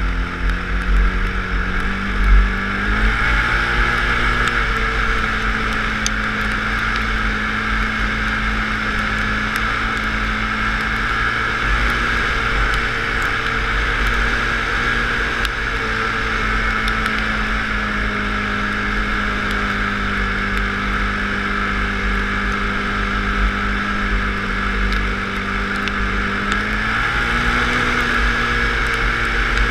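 Off-road vehicle engine running at speed across sand, heard from the rider's helmet camera. The pitch steps up about three seconds in, drops back partway through, and rises again near the end as the throttle changes. Low wind buffeting on the microphone throughout.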